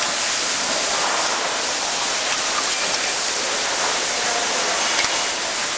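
Packaging machine running: a steady, even hiss of machinery with a couple of faint clicks.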